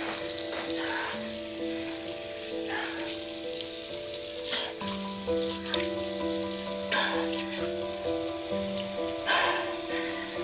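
Water running from a bathroom tap into a sink, with splashing as water is scooped, over soft background music of long held notes.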